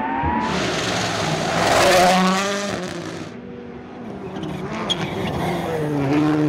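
Rally car passing at speed on a gravel stage: its engine note rises to a peak about two seconds in and falls away, with a loud rush of tyre and gravel noise as it goes by. Another engine note builds near the end.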